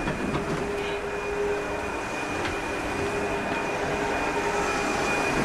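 Steady mechanical hum and rumble with a constant high whine running through it.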